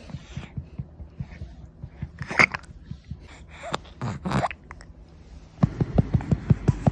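Two short vocal sounds from a baby being burped, then, about two-thirds of the way in, a hand begins patting her back in a quick, even rhythm of several pats a second to bring up a burp.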